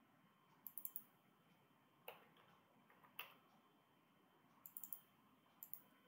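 Faint computer mouse and keyboard clicks, a few at a time in small groups.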